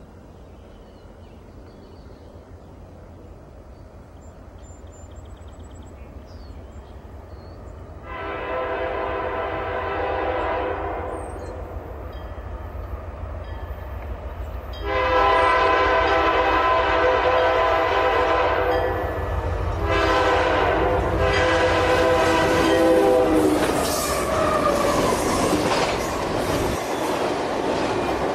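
Freight train's diesel locomotive air horn sounding four blasts, long, long, short and long, the grade-crossing signal blown at a whistle post, the last blast dropping in pitch as the lead locomotives pass. Under it the rumble of the locomotives' diesel engines grows as they approach, with wheel-on-rail clatter near the end.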